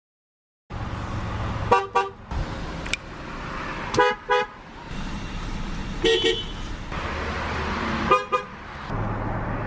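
Car horns of several different cars sounded one after another, including a Nissan and a Lexus. Each is tapped for a pair of short beeps about every two seconds, over a steady low hum.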